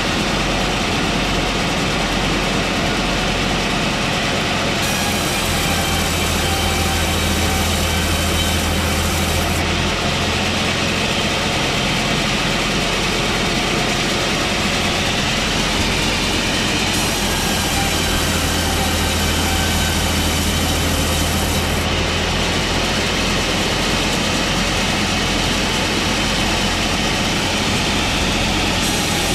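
Electric saw running steadily, its sound shifting abruptly every few seconds between a plain steady noise and one with a strong low hum.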